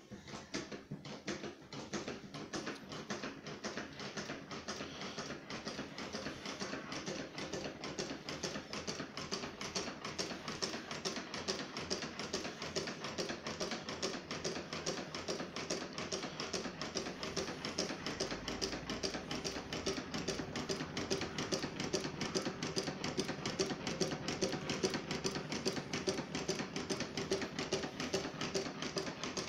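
Homemade twin solenoid engine running: its two solenoids pulling their plungers clack in a rapid, even rhythm as they drive the pistons and beams that turn a large flywheel. The clatter gets a little louder as it goes on.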